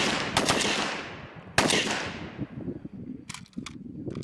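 MP43 machine pistol (7.92×33mm) firing: two quick shots about half a second in and one more at about a second and a half, each trailing off in a long echo. A few faint clicks follow near the end.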